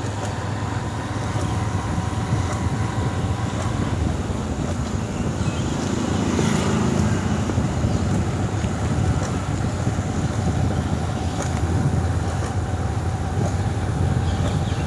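Motorcycle running steadily at road speed, its engine drone mixed with a low wind and road rumble.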